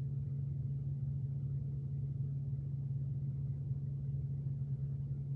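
A steady low hum that holds one pitch without change.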